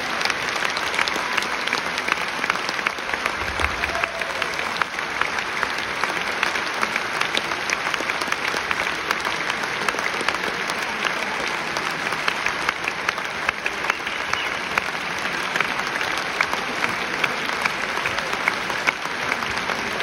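Audience applauding: dense, steady clapping of many hands.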